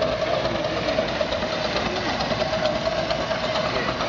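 Live-steam ride-on miniature locomotive running past close by while hauling passenger cars, with a quick, even beat over a steady held mid-pitched tone.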